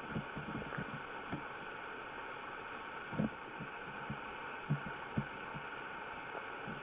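Underwater river ambience picked up by a camera submerged on the riverbed: a steady hiss with irregular soft low thumps, the strongest about three seconds in and twice around five seconds.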